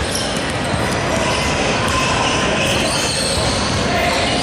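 Basketball game in a gym: a ball bouncing on the hardwood amid steady crowd and player chatter echoing in the hall.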